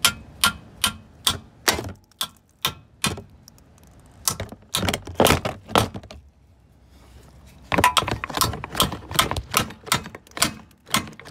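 Arc welder laying short tack welds that fix a nut to the car's frame, a quick series of sharp crackling pops with a short pause about two-thirds of the way through.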